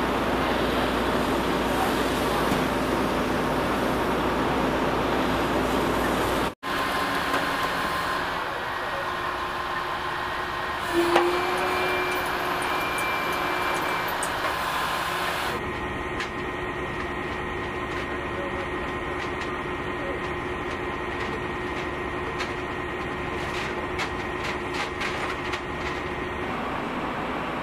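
Steady outdoor street noise with a heavy vehicle's engine running, broken by abrupt cuts between shots. A short thump comes about eleven seconds in, and a few light clicks near the end, with faint voices.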